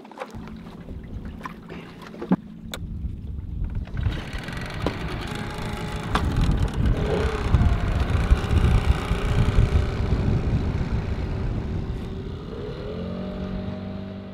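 Dinghy outboard motor running as the inflatable tender crosses open water, with rushing wind and water that grow louder from about four seconds in and ease off again near the end as the motor note changes.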